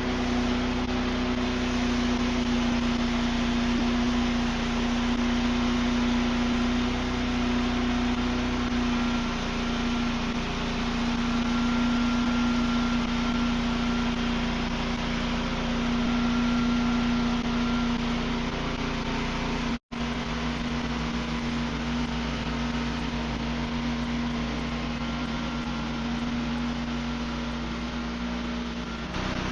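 An engine running steadily at a constant speed, a loud even hum with machine noise over it; the sound drops out for an instant about two-thirds of the way through.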